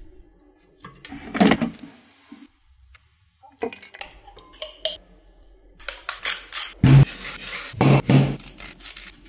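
Kitchen food-prep sounds: a spoon scraping and clinking against a bowl, then a large knife cutting through a zucchini onto a cutting board, with two heavy thuds about a second apart near the end.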